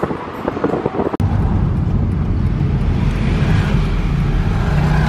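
Car driving, heard from inside: irregular wind buffeting on the microphone at an open side window, then, after a sudden click about a second in, a steady low drone of engine and road noise.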